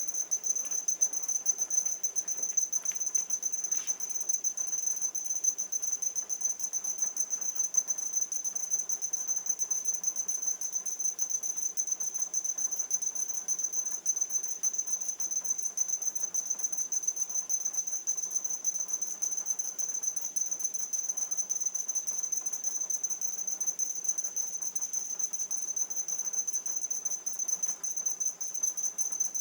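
Small speakers on a swarm of e-puck robots beeping over and over, the beeps overlapping into one steady high-pitched tone with a fast flutter, played back at double speed.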